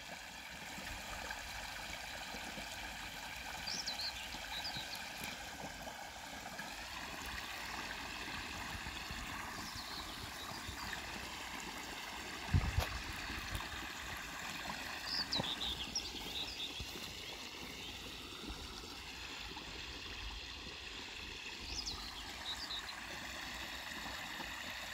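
Water of a small sewage-carrying stream (a Köttelbecke) flowing and trickling steadily, with a single dull thump about halfway through.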